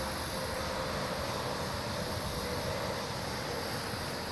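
Steady, even background hum and hiss with no distinct events.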